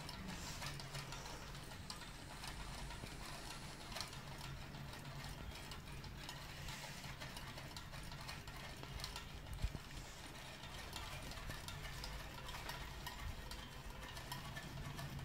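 Homemade Stirling engine's wire crankshaft and CD flywheel clicking and knocking quietly as it runs, over a steady low hum.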